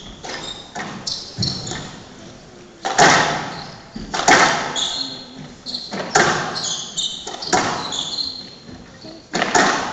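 Squash ball struck back and forth in a rally: sharp racket-and-wall cracks about every one and a half seconds, each echoing through a large hall, with short high squeaks of players' shoes on the court floor between them.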